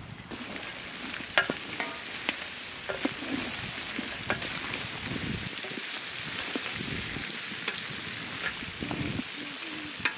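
Lamb meat sizzling and frying in a large steel pot over a wood fire while a wooden spoon stirs it. The hiss is steady, and the spoon knocks and scrapes against the pot every second or so.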